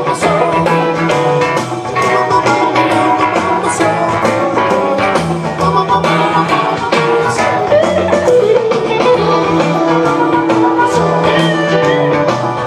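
Rock band playing live, with electric guitar over bass and drums.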